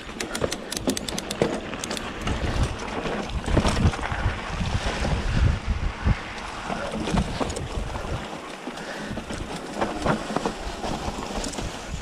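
Mountain bike ridden down a dirt trail: wind buffeting the microphone over the rumble of knobby tyres on the ground, with knocks and rattles from the bike over bumps. A run of quick clicks comes in the first two seconds.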